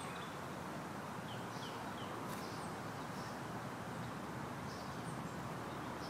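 Steady outdoor background hiss with a few faint, short high-pitched bird chirps scattered through.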